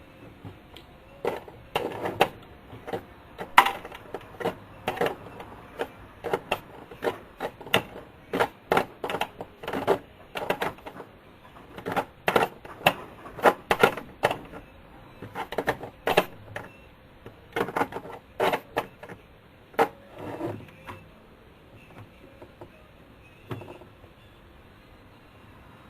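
Small metal hardware and hand tools clicking and clinking at irregular intervals as gauge nuts and washers are handled and fastened on an aircraft instrument panel. The clicks thin out over the last few seconds.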